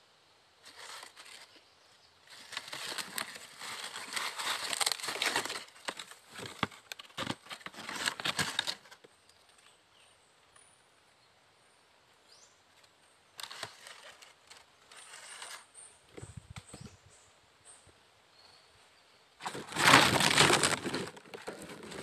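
Dry leaves and foliage rustling and crackling close to the microphone in three spells, the last near the end the loudest, with a quiet stretch in the middle.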